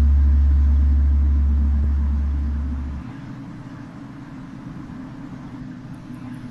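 A deep, steady rumbling drone that fades over about three seconds and then stops abruptly, leaving a fainter low hum.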